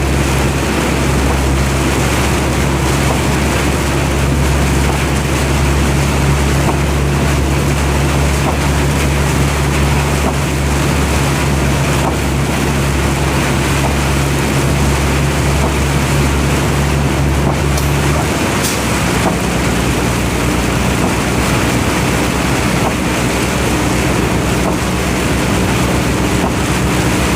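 Vehicle engine running steadily while driving, with road and wind noise around it; about two-thirds of the way through the engine note changes abruptly.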